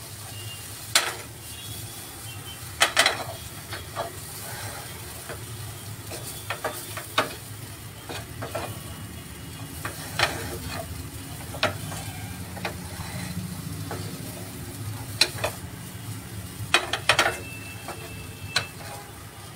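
Wooden spatula stirring and scraping a corn-and-chicken filling in a frying pan, with irregular knocks of the spatula against the pan, over a low sizzle from the low-flame pan.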